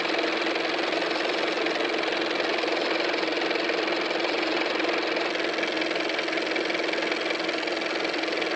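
Film projector running: a steady, fast mechanical clatter with a hum under it.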